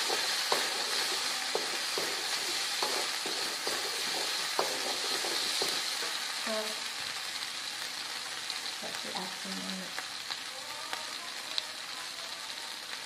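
Ground spice paste sizzling in a little oil in a metal wok, a steady frying hiss as it is sautéed until fragrant. During the first half a wooden spatula stirs it, knocking and scraping against the pan; then the sizzling goes on alone, slowly getting a little quieter.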